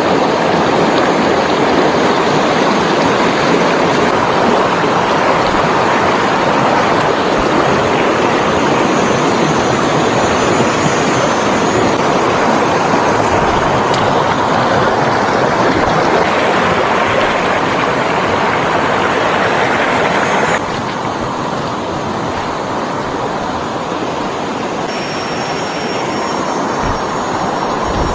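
Rushing water of a rocky stream's small rapids and cascades, a steady loud rush that steps down a little about twenty seconds in.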